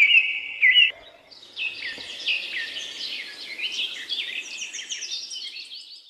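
Birds chirping: a quick series of loud repeated chirps in the first second, then many overlapping short falling calls.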